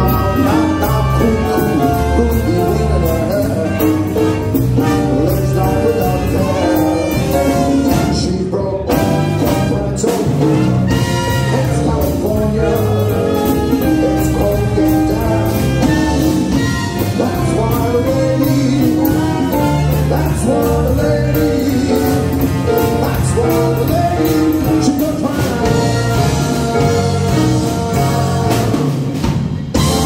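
Live big band combo playing a jazz number: a brass section of trumpet, trombone and saxophones over drum kit, keyboard, bass and congas.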